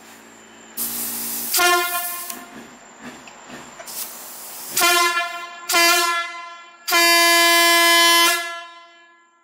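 Fire truck air horn sounding in blasts on one steady pitch: a rush of air, a short blast, two more short blasts near the middle, then a long blast of about a second and a half that fades away. A brief hiss of air comes between the blasts.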